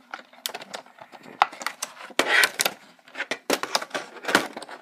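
Cardboard box and clear plastic packaging tray being handled: irregular clicks, taps and crinkles, with a louder rustling scrape a little over two seconds in.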